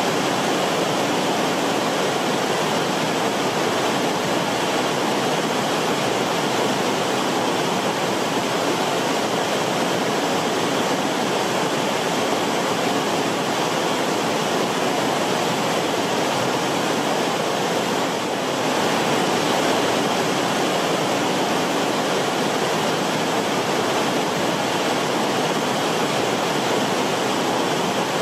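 Fast-flowing river water: a steady, dense rush of moving water with no other sounds in it.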